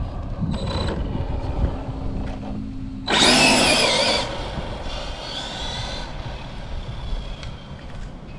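Brushless electric motor of a Losi 1968 Ford F100 RC drag truck whining under hard acceleration, with a loud burst of about a second starting about three seconds in and a fainter whine a second or so later.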